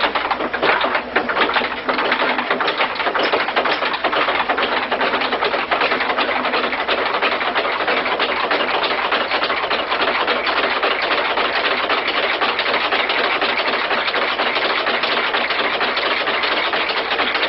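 Homemade magnetic motor prototype of wood, aluminum, brass and stainless steel, with aluminum cylinder injectors on a crankshaft, running after being spun up by hand. Irregular knocks for the first couple of seconds settle into a steady, fast mechanical clatter.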